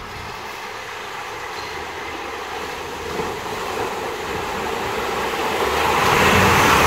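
Motor vehicles moving slowly through a flooded street: a steady engine rumble and the hiss of tyres in water, growing louder over the last second or so as a van comes closer.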